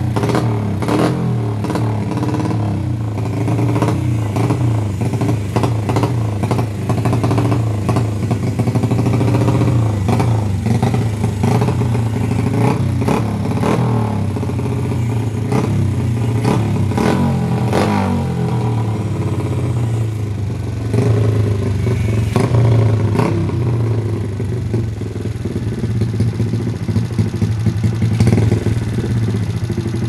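Built Honda single-cylinder four-stroke motorcycle engine (56 mm big bore, stroker crank, grind cam, 32 mm carburettor) running loudly through an open aftermarket exhaust. The throttle is blipped several times, so the engine note rises and falls over a lumpy, uneven idle.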